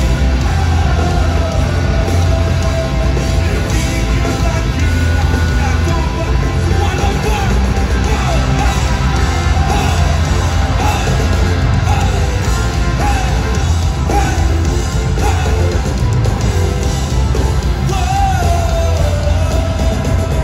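Rock band playing live and loud through a PA: heavy bass and drums under a sung and yelled vocal line, heard from within the crowd on a phone's microphone.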